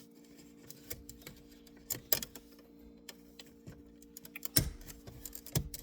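Small plastic clicks and knocks as an aftermarket plastic gear shift surround is pushed and worked into place around the gear lever of a Volkswagen MK7 GTI, with a few sharper knocks near the end.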